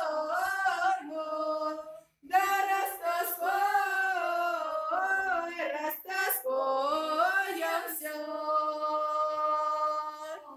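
A group of women's voices singing a Russian folk song a cappella, the long vowels drawn out with bending, ornamented pitch. There is a short breath break about two seconds in, and a long held note near the end.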